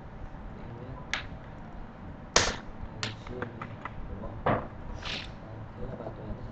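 A handful of separate clicks and taps from a computer mouse and keyboard, a few per second at most, over a low steady room hum.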